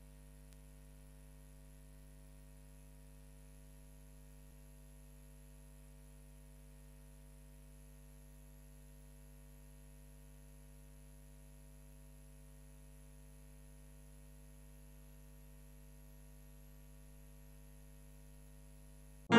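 Faint, steady electrical hum made of several constant tones, with a thin high whine above it, unchanging throughout.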